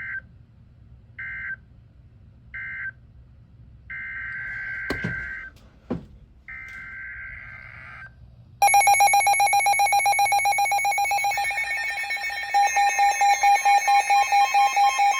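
Emergency Alert System digital data bursts from a weather radio. First come three short buzzing bursts about a second apart, the end-of-message signal of one warning. Then come two longer bursts of the next warning's header, and about eight and a half seconds in a loud, steady alert tone starts, announcing the new warning; two sharp clicks sound during the longer bursts.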